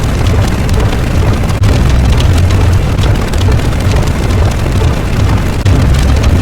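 A loud, steady rumbling noise with fine crackling through it, heaviest in the deep low end.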